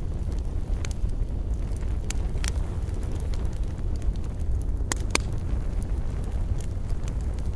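Wood fire burning: a steady low rumble with scattered sharp crackles and pops from the burning wood, two louder pops about five seconds in.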